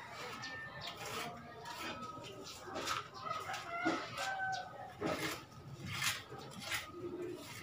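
Chickens clucking on and off, mixed with short scrapes and taps from cement plastering work on a concrete-block window opening.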